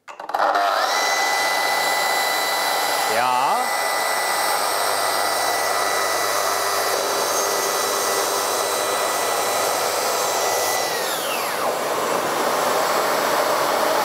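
Festool TS 60 KEBQ plunge-cut track saw starting up and sawing MDF, its motor giving a steady high whine, with a Parkside PPWD 30 A workshop vacuum extracting the dust through its hose. About 11 seconds in the saw is switched off and its whine falls away as the blade winds down, while the vacuum keeps running on.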